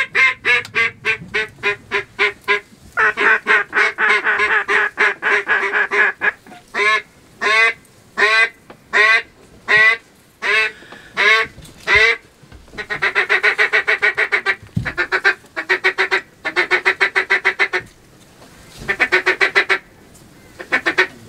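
Duck call blown in a hunting routine: a falling string of loud quacks, then fast feed chatter, single drawn-out quacks, and several bursts of rapid chatter, calling ducks in toward the blind.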